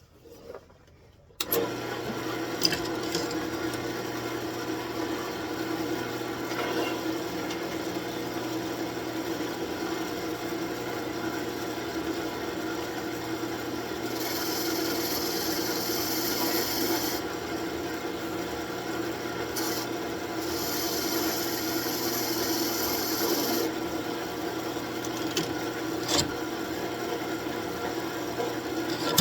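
Wood lathe running with a steady hum while a turning tool cuts and scrapes the spinning birch blank. The sound comes in suddenly about a second and a half in, and the cutting grows louder and hissier for two stretches of a few seconds around the middle.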